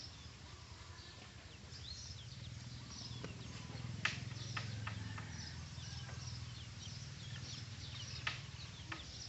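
Birds chirping over and over with short high calls, over a low hum that swells in the middle. A few sharp clicks, the loudest about four seconds in and another near the end.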